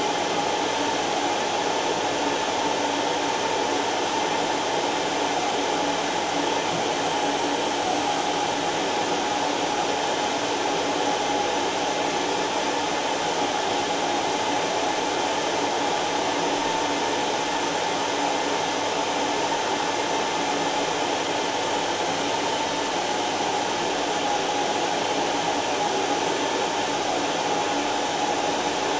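Vacuum cleaner motor running steadily: an even rushing hum with a constant whine in it that neither rises nor falls.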